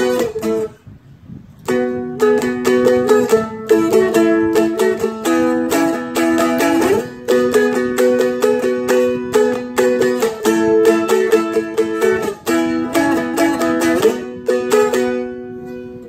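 Seagull Merlin M4 (a four-string, dulcimer-style instrument) strummed in fast, even strokes, repeating a three-chord rock pattern with several chord changes and a couple of slides up the neck. The strumming stops for about a second near the start.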